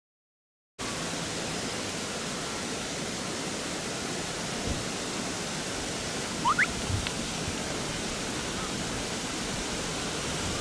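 Steady rushing of a river, starting about a second in after a brief silence. About six and a half seconds in, one short rising chirp stands out above it.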